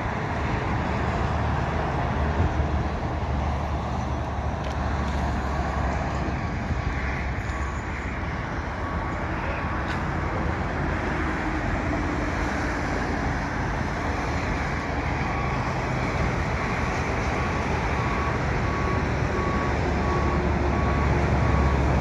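Steady highway traffic noise: a continuous low hum of passing cars and trucks. From about halfway through, a faint beep repeats at an even pace.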